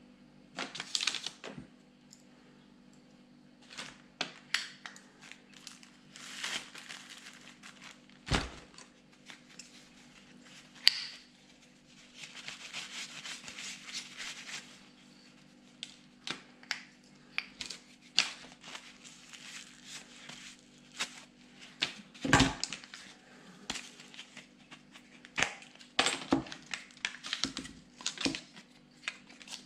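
Paper towel rustling and rubbing as starter-motor parts are wiped clean, with a longer spell of wiping a few seconds in. Scattered light clicks and clinks of small metal parts, and two louder knocks, are heard over a faint steady hum.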